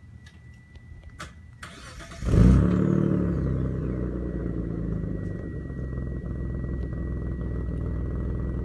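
1993 Dodge Stealth twin-turbo's 3.0-litre V6 being started through its stock exhaust: a couple of clicks, a brief crank about two seconds in, then the engine catches with a loud burst and settles into a steady idle. A thin steady high tone runs alongside.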